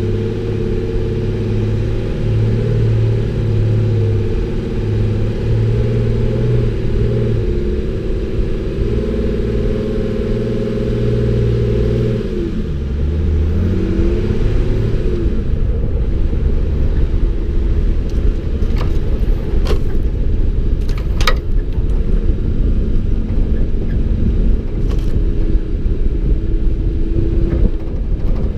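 BMW M57D30 straight-six turbodiesel in a Nissan Patrol running at steady low revs while crawling off-road, its pitch dropping and then rising again about halfway through. In the second half the engine sound turns into a rougher rumble, with a few sharp knocks.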